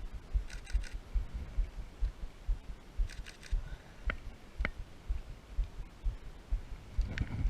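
Footsteps of someone walking on a forest trail, low thumps about twice a second. Over them, birds call twice in quick runs of high notes, and a few single sharp chirps sound about four and seven seconds in.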